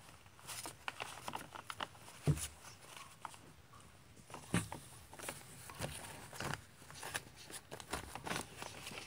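A pet mouthing and pushing a plush popcorn toy around on newspaper: irregular paper rustling and crinkling, with two louder thumps about two and four and a half seconds in.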